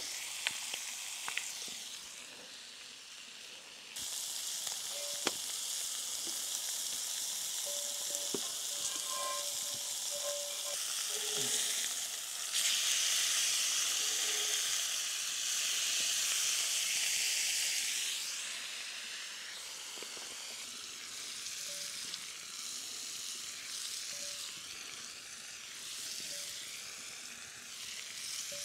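Beef steak sizzling in a hot pan. The sizzle gets louder about four seconds in and is loudest for several seconds in the middle, with a few faint clicks.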